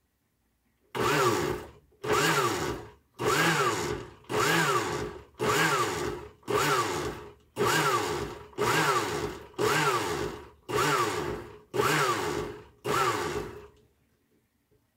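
Glass-jar countertop blender pulsed about a dozen times, roughly once a second, starting about a second in; with each pulse the motor whines up and runs down as it blends zucchini, eggs and oil into a batter.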